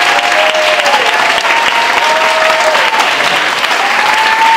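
A roomful of people applauding steadily, with several long, drawn-out whoops rising over the clapping.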